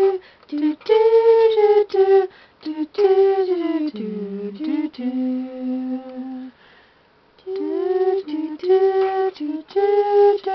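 A young woman humming a wordless tune in held notes, with short breaks between phrases. The melody drops low about four seconds in, and there is a short pause around seven seconds.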